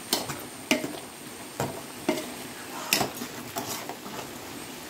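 A long steel ladle stirs soya chunks (meal maker) in boiling masala water in a large aluminium pot. It clinks and scrapes against the pot's side at irregular intervals, about one to two knocks a second, over a steady hiss.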